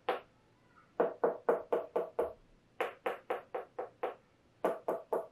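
Finger flicks on the rind of a whole watermelon: short hollow knocks at about five a second, in runs of six or seven with brief pauses between them. This is the sound test for ripeness, where a ripe melon rings back with an echo and an unripe one gives a dead knock.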